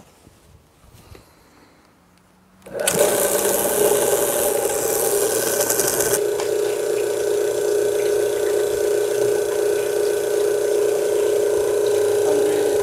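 RO booster pump, an electric motor driving a brass rotary-vane pump head, switches on about three seconds in. It runs with a loud hiss for the first few seconds, then settles into a steady mechanical hum with a fixed whine while the pressure is set to about 80 psi by the adjustment screw on the pump head.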